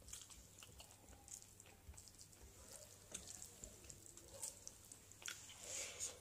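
Faint eating sounds: fingers mixing rice and pork gravy on a steel plate, with small wet clicks of chewing. Near the end comes a brief, louder wet mouth noise as a handful of food goes into the mouth.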